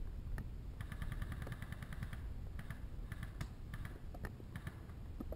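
Airsoft gun fire: a quick burst of rapid sharp clicks about a second in, lasting just over a second, followed by a few scattered single clicks, over a low rumble.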